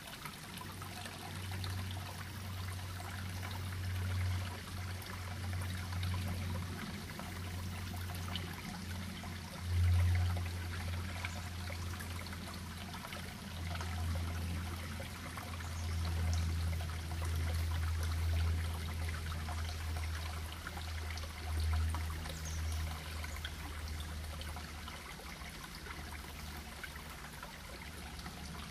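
Small rocky creek flowing steadily over stones. Under it a low rumble swells and fades, loudest about ten seconds in.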